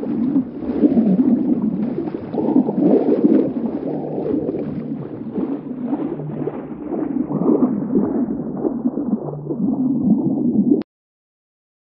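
Big cat growling in a low, continuous rumble that stops abruptly near the end.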